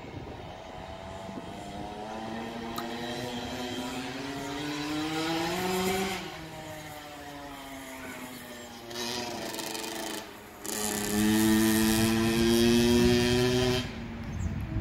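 A small dirt bike engine running under throttle. Its pitch rises for about six seconds and then falls away. It drops off briefly, then comes back louder and steady for about three seconds before easing off near the end.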